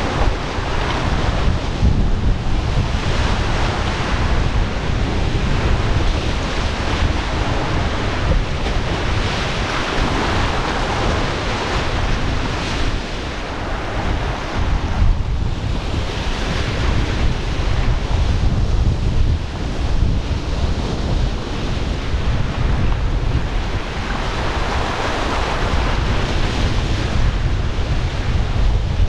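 Rushing whitewater of a river rapid, a steady roar that swells and eases every several seconds, with heavy wind buffeting on the microphone.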